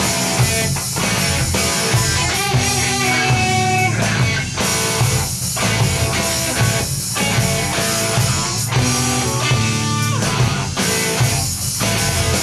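Live rock band playing an instrumental passage: electric guitar with bending lines over drums and bass. The riff comes round about every six seconds, with short breaks in the sound.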